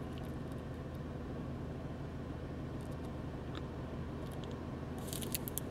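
Steady low hum of a car's interior, with faint clicks of a small digital voice recorder's buttons being pressed, a few together near the end.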